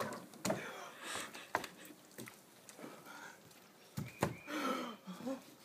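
A man gasping, panting and groaning in short bursts from cold shock, just out of cold pool water.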